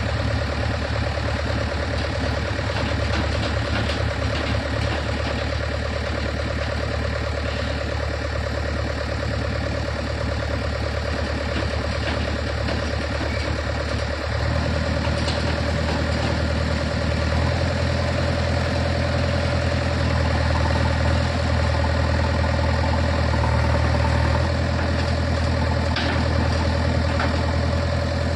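JCB 3DX backhoe loader's diesel engine running steadily while its backhoe digs and swings earth. The engine note changes about halfway through and runs slightly louder from a few seconds later.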